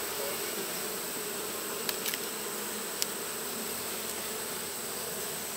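Honeybees buzzing in a steady hum, with a few light clicks about two and three seconds in.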